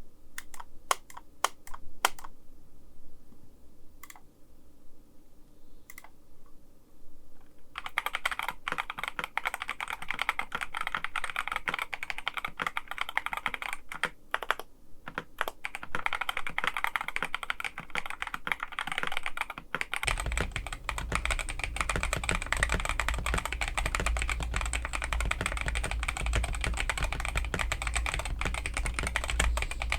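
Typing on a KBD67 Lite custom mechanical keyboard with stock Boba U4T tactile switches, a polycarbonate plate and KAT Alpha keycaps. It starts with scattered single key presses, then becomes fast continuous typing about a quarter of the way in. About two-thirds of the way through, the typing sounds fuller and deeper.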